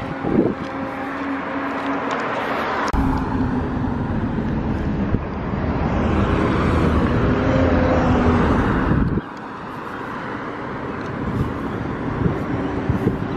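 Road traffic: cars driving past, with a steady engine hum. From about three seconds in a heavier low rumble sets in and cuts off abruptly about six seconds later.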